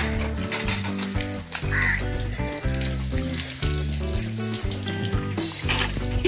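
Background music with a stepping bass line, over the hiss and splash of water gushing from a hand pump as its lever is worked.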